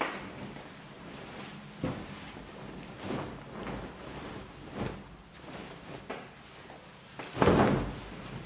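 A patchwork quilt top rustling and sliding over a tabletop as it is bunched up and dragged along, with a few soft knocks and one louder, longer swish near the end.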